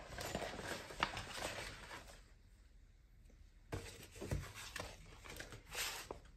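Curled sheets of sticker paper and vinyl being handled on a table: paper rustling and sliding with small taps, pausing for about a second and a half midway before starting again.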